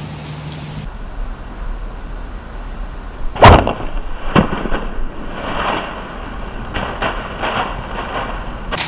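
A bow shot at a whitetail buck: one loud sharp crack from the released bowstring and the arrow hitting, a second smaller crack about a second later, then the deer running off through dry leaves with a crackling rustle.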